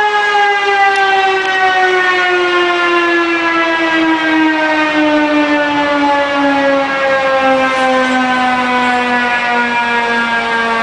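Mechanical fire siren winding down: one long wail with many overtones, its pitch sinking slowly and steadily.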